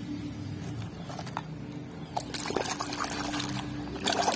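Water sloshing and splashing in a tub of soapy water as a plastic toy is dunked and scrubbed by hand, with a few light clicks. The splashing grows louder near the end.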